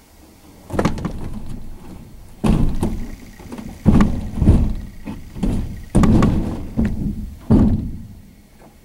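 Scrap being loaded into a pickup truck's bed: about six heavy bangs and thuds spread over several seconds, each dying away quickly.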